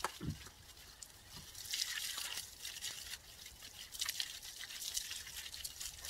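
Water from a garden hose spattering onto shrubs and soil, a dripping, trickling hiss that swells about two seconds in and again about four seconds in.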